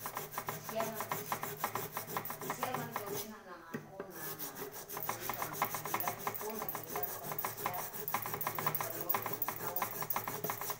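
A small metal cauldron's outer surface being scraped by hand with a small hand-held piece, in quick rasping back-and-forth strokes, roughening the metal for a repair. The strokes stop briefly about three and a half seconds in, then go on.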